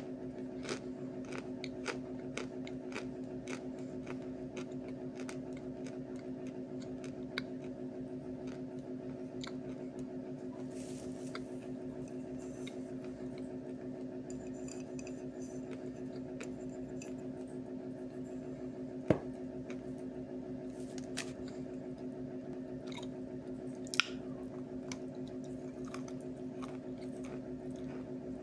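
Close-up mouth sounds of chewing soaked lumps of chalk: soft squishy, wet clicks and small crunches, with two sharper clicks in the second half. A steady low hum runs underneath.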